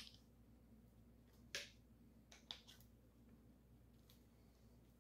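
Near silence with a few faint, scattered clicks, the sharpest about a second and a half in: small metal parts being handled while a piston ring compressor is set around a piston on the engine block.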